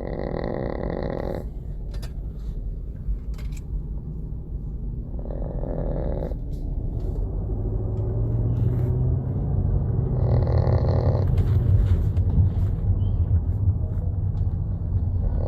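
Small dog snoring in slow, even breaths about five seconds apart, each snore lasting about a second, over a steady low rumble.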